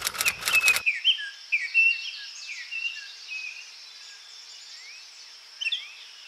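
Birds chirping: many short calls with quick pitch slides over a steady high hiss. A run of sharp clicks comes in the first second.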